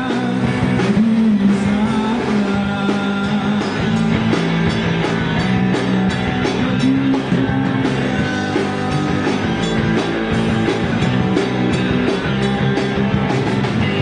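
Live rock band playing amplified electric guitars and electric bass with a steady beat.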